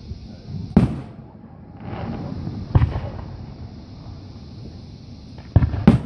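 Aerial firework shells bursting with sharp booms: one about a second in, another near three seconds, and two in quick succession near the end, with a low rumble between the bangs.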